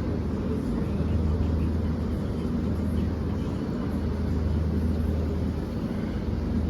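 Steady low rumbling background noise with a low hum, unchanging throughout.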